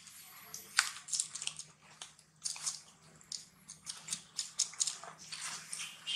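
Baby macaque chewing and nibbling close to the microphone: irregular short, crackly bites and mouth clicks.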